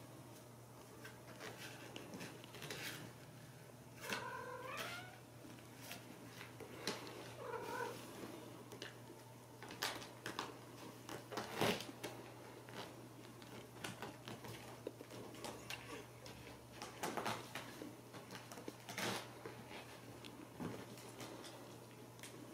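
A Ragdoll cat meowing twice, a longer call about four seconds in and a shorter one a few seconds later, among scattered light taps and rustles from the cats playing on the sofa.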